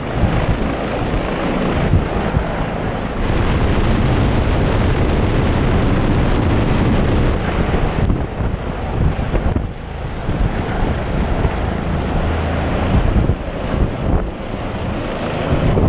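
Helicopter rotor wash and engine noise heard from a rescuer dangling on the hoist cable below the aircraft: a loud, steady rush of wind buffeting the microphone over a low rumble, with a faint high whine that drops out for a few seconds partway through.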